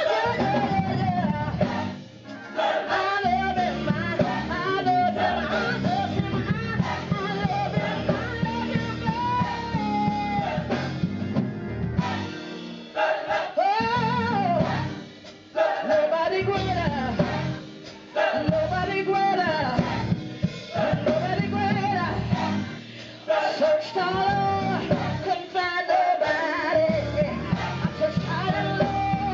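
Live gospel music: a woman sings lead into a handheld microphone through the PA, holding and bending notes, backed by keyboard, drums and guitar.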